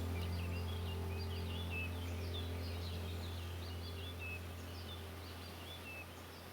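Small birds twittering faintly, many short high chirps, over a steady low hum, the whole slowly fading.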